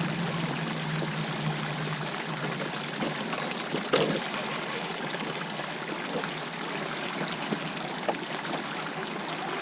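Steady rush of flowing river water, with a low hum during the first two seconds and a few light knocks, the clearest about four seconds in.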